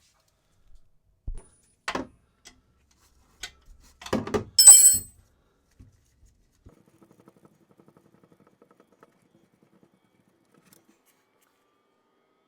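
Metal tools and parts being handled: a few knocks and clicks, then a loud ringing metallic clink about four and a half seconds in, followed by faint scattered ticks.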